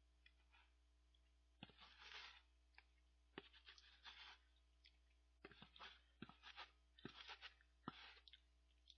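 Faint eating sounds of instant cup ramen noodles: short slurps and chewing that start about a second and a half in and come on and off, with light clicks of chopsticks against the plastic lid used as a bowl.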